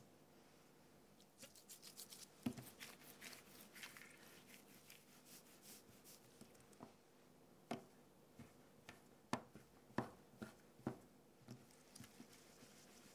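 Faint rustling and crackle of gloved hands rolling soft dough into a log on a silicone mat, then about half a dozen sharp taps in the second half as the log is cut into pieces on the mat.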